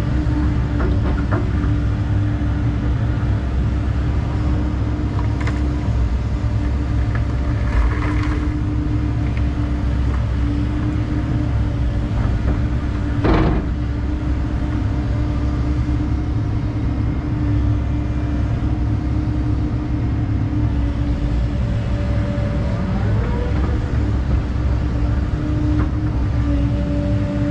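Excavator's diesel engine running steadily with a constant hum, and a single sharp knock about halfway through.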